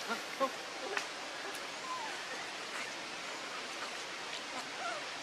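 Steady rushing outdoor background noise with a few short, faint squeaks and chirps scattered through it, some sliding in pitch, and a couple of sharp clicks.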